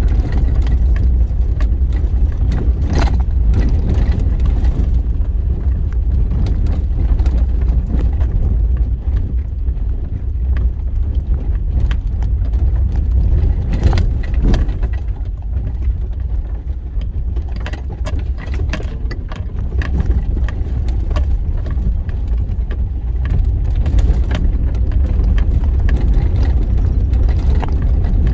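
Four-wheel-drive vehicle driving over a rough dirt road: a steady low rumble with frequent rattles and knocks from the bumps.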